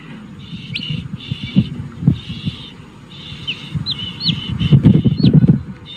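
Baby chick peeping: short, high, hooked chirps, one after another, over a steady high chirring in the background. About four and a half seconds in, a louder spell of low, rough noise lasts about a second.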